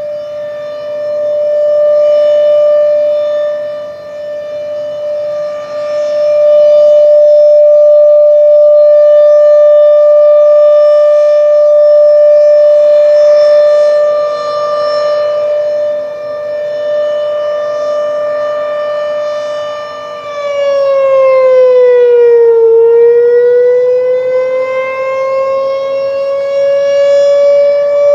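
Low-pitched Thunderbeam RSH-10 rotating outdoor warning siren sounding a steady alert tone. The tone swells loud and fades as the horn turns toward and away. About twenty seconds in, the pitch sags and then climbs back up to the steady tone.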